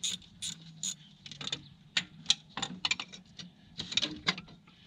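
Ratchet wrench clicking as it works on an alternator mounting bolt. It starts with even strokes about two a second, then turns into a quicker, uneven run of clicks.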